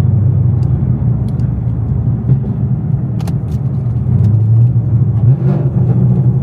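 Cammed Camaro V8 running while driving, a loud, steady, deep rumble heard from inside the car.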